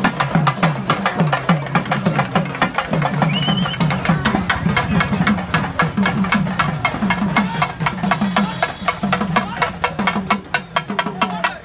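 Barrel drums beaten in a fast, steady rhythm, with crowd voices underneath.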